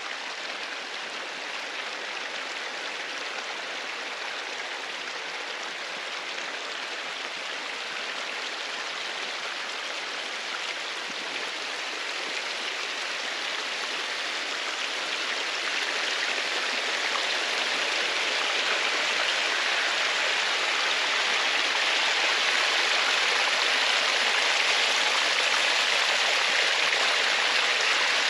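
Rushing water of a stream or falls: a steady, even hiss with no other events, growing gradually louder.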